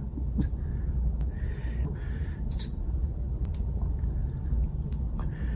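A man's short, sharp breaths in, repeated several times like someone about to sneeze, with small clicks between them over a steady low room rumble.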